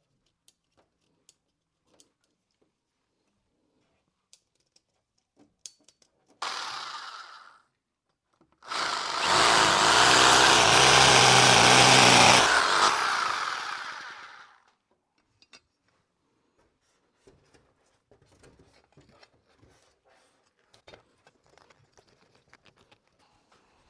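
A power drill runs in two bursts: a short one about six seconds in, then a longer one of about five seconds. Light clicks and handling noises follow.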